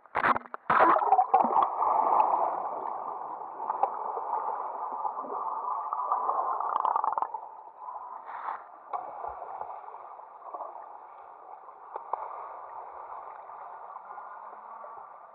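A few sharp splashes as an action camera goes into the lake. Then a steady, muffled gurgling of water heard with the camera underwater, which turns quieter after about seven seconds.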